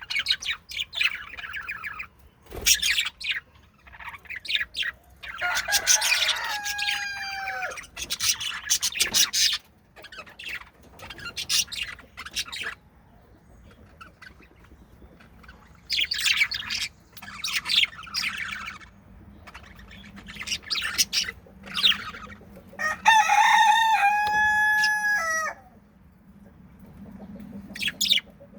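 Budgies chirping and chattering in irregular bursts, with two longer, louder pitched calls, one about six seconds in and a louder one about twenty-three seconds in.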